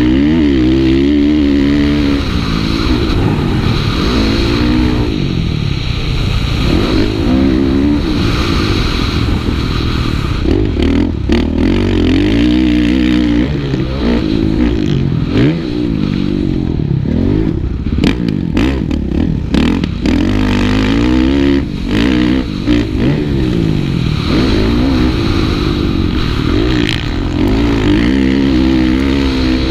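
Kawasaki KX450F motocross bike's single-cylinder four-stroke engine, heard from the rider's helmet, revving up and dropping off again and again as it is ridden hard around a dirt track. Several sharp knocks come through the middle.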